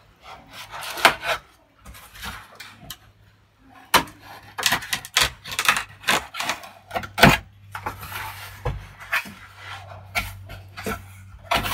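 Box cutter slicing through packing tape on a cardboard box: a series of short scraping and tearing strokes, with the cardboard flaps being pulled open near the end.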